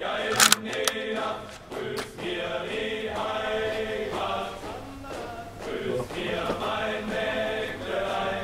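Background choir music with voices singing sustained chords. A single sharp crack stands out about half a second in.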